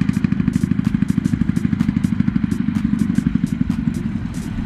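Homemade farm truck's single-cylinder diesel engine chugging at a fast, even beat as it hauls a full load of rice sacks, with a light regular ticking over the engine note.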